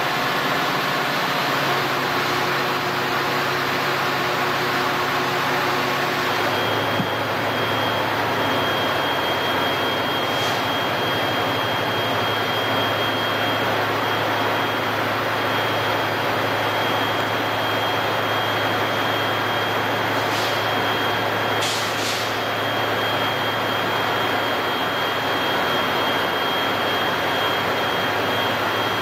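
Steady drone of Metra diesel passenger locomotives running at the station platform. After a cut about six and a half seconds in, a thin high whine joins the drone.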